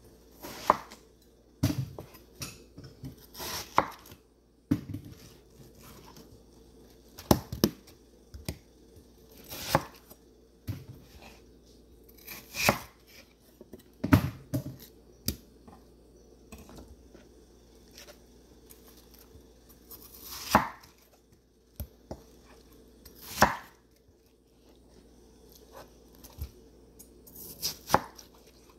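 Large kitchen knife cutting through watermelon and knocking down onto a wooden cutting board: irregular sharp chops, some in quick runs of two or three, others a few seconds apart.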